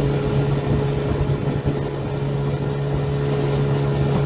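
Motorboat engine running at a steady speed while the boat is underway: a constant, unchanging hum over the rushing noise of wind and water.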